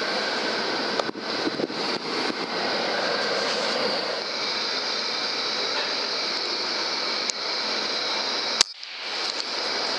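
A steady hiss with a few light handling clicks about a second or two in. Near the end comes a single sharp crack: a suppressed Gamo Urban regulated PCP air rifle firing.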